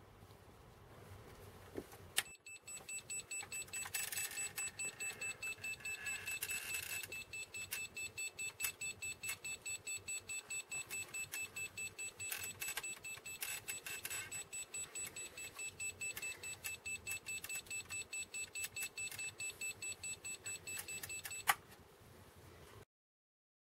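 Electronic sound unit of a toy fire-engine model beeping: a high-pitched beep repeated about four times a second, switched on with a click about two seconds in and off with a click near the end.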